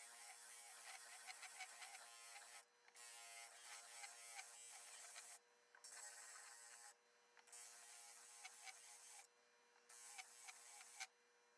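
Faint sound of an electric disc sander grinding the protruding fingers of a walnut box joint flush. The grinding hiss breaks off and resumes four or five times as the piece is lifted from the disc and pressed back on.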